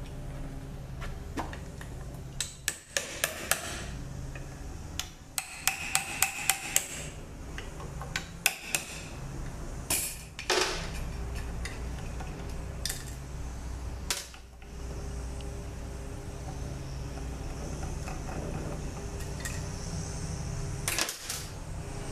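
Bursts of sharp metallic clicks and taps from tools and parts being worked on an automatic transmission's front pump on a steel bench, with the loudest clank near the end as the pump halves are lifted apart. A steady low hum runs underneath.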